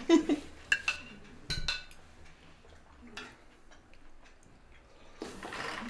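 Cutlery clinking against plates at a dining table: a few sharp, scattered clinks, most in the first two seconds and one more around three seconds in. A louder rushing noise comes in near the end.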